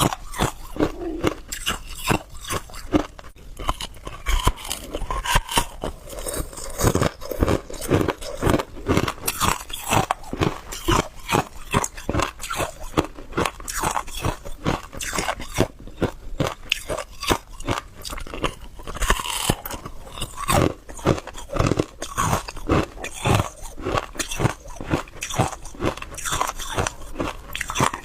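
Hard clear ice being bitten and chewed close to the microphone: a continuous run of sharp, irregular crunches and cracks, several a second.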